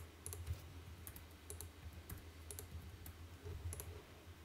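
Faint computer mouse clicks and keyboard taps, scattered irregularly, over a low steady hum.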